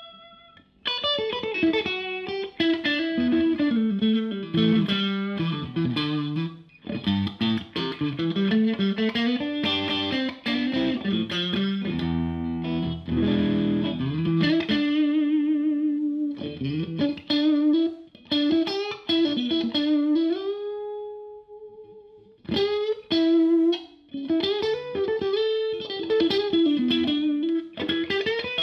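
Odlair SH 210 OW 7 Stratocaster-style electric guitar played through a Marshall JTM combo amp with a lightly overdriven tone. It plays single-note lead lines in quick runs, with a few held notes, a slide up, and brief pauses between phrases.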